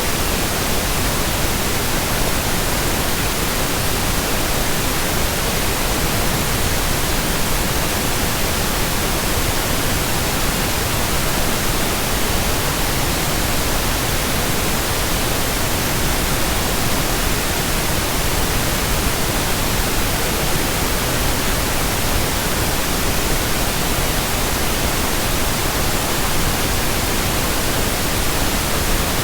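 Steady pink noise: an even, unchanging hiss spread across the whole range of pitch.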